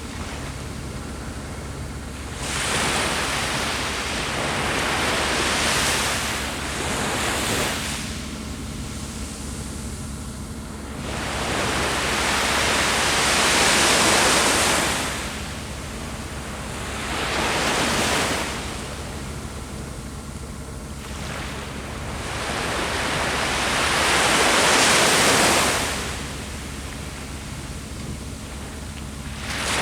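Sea waves breaking and washing up the shore, the surf swelling and falling away in turn, about every four to seven seconds.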